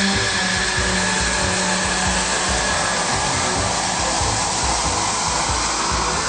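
Military jet aircraft engine noise, a loud steady rushing sound with a high whine that fades about half a second in, over an uneven low rumble.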